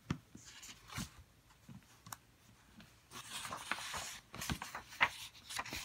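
A page of a picture book being turned by hand. A few light clicks and taps, then a soft papery swish about three seconds in, followed by more light taps of hands on the book.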